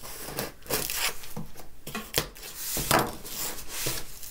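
Knife slitting heavy packing tape on a cardboard box and the cardboard flap being pulled open: a string of irregular scraping, tearing and crinkling strokes, the sharpest about two and three seconds in.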